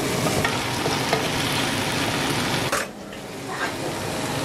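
Hard chicken pieces sizzling as they fry in a nonstick pot, stirred and scraped with a wooden spoon. About three seconds in, the sizzle briefly drops away, then picks up again.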